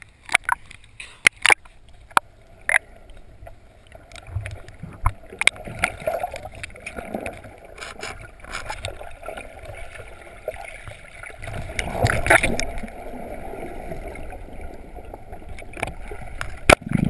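Underwater noise heard through a GoPro HD Hero's waterproof housing as a free diver swims down: muffled gurgling water, with a few sharp clicks in the first seconds. The noise swells about twelve seconds in.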